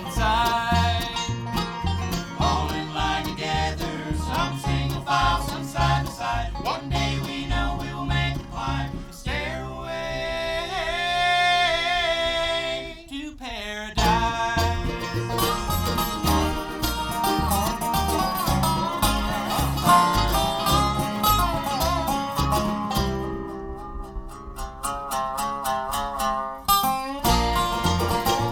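Live bluegrass band playing an instrumental break: quick plucked banjo, mandolin and guitar notes over a steady bass beat. From about 9 to 13 seconds in, the picking drops back under a held, wavering melody line.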